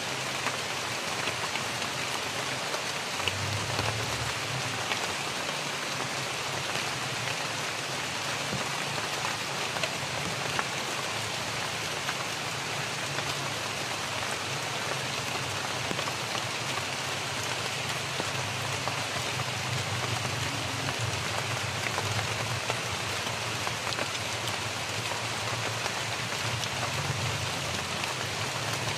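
Heavy rain falling steadily on leafy vegetation.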